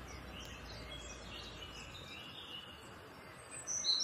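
Steady hiss of a pressure-washer jet spraying water onto a motorcycle's rear wheel, with a low hum that drops away about halfway through. Faint bird chirps, a little louder near the end.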